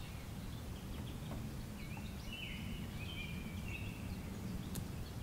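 Quiet outdoor ambience: a steady low rumble of wind or background noise, with faint bird chirps from about two seconds in.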